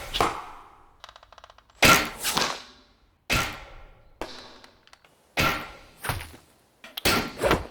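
Japanese longbow (yumi) shots in kyudo: the sharp ring of the bowstring on release, each followed about half a second later by the arrow's hit, heard as three or four shots with a ringing tail after each.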